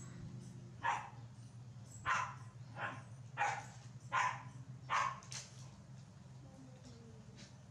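A run of about seven short animal calls, each under half a second and coming roughly every half second to a second, over a steady low hum.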